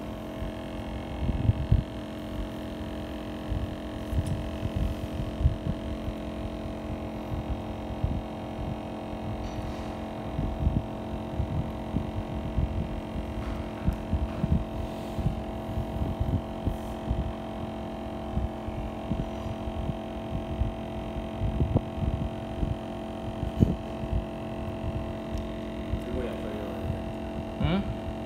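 A steady hum with several fixed tones, from a powered bench tool running. Frequent soft, irregular low thuds and knocks from handling sound under it.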